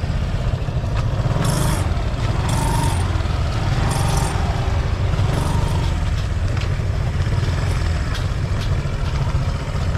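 Busy market-street ambience dominated by a steady low rumble of motorbike traffic, with a few brief high-pitched clinks or squeaks in the first half.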